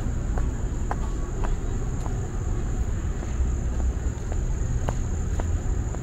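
Insects singing in a steady, high drone over a low outdoor rumble, with a walker's footsteps ticking at an even pace, about two steps a second.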